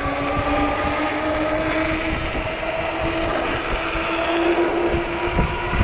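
Electric bike motor whining under throttle, its pitch slowly rising as it gains speed, with wind buffeting the microphone.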